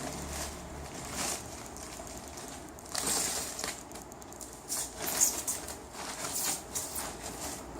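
Packaging rustling and crinkling in several separate bursts as a motorcycle helmet is handled and unwrapped.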